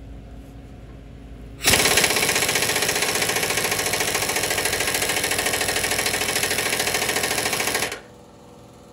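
Pneumatic impact wrench hammering on the 3/4-inch grade 8 bolt of a bushing press tool. It starts about two seconds in, runs steadily for about six seconds and cuts off suddenly. The owner is unsure whether it is turning the bolt at all.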